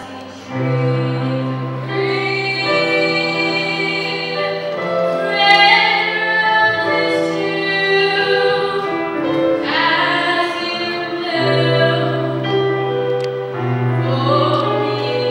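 A young woman singing a slow song with vibrato, holding long notes, backed by a keyboard sustaining low notes and chords.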